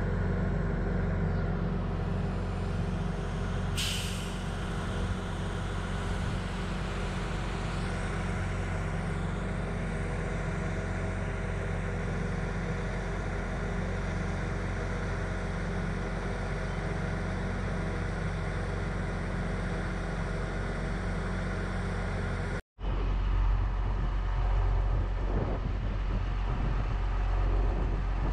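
Utility bucket truck's engine running steadily, a constant low hum, with a short sharp hiss about four seconds in. After a brief break near the end the engine is louder.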